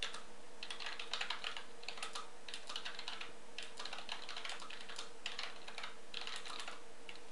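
Typing on a computer keyboard: a quick, uneven run of keystrokes over a faint steady hum.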